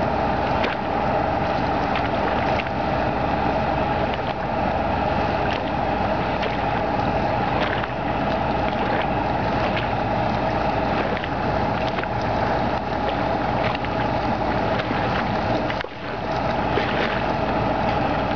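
Steady engine drone from a military pontoon ferry raft moving across open water, with eight-wheeled armoured vehicles aboard. The drone holds even throughout, with a brief drop near the end.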